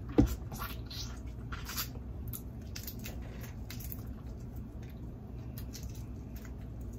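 A person biting into and chewing a jumbo shrimp with mouth closed: a sharp bite click just after the start, then scattered wet smacking and squishing chewing sounds.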